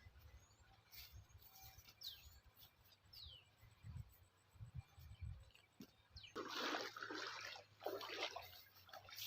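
Water splashing in two short bursts, about six and eight seconds in. A few quick falling bird chirps come earlier.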